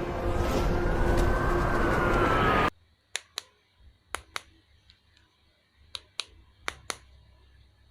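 Loud music with a rising-then-falling tone cuts off abruptly about 2.7 seconds in. It gives way to a quiet room where sharp clicks come in pairs, four times, a fraction of a second apart, like small plastic parts being handled.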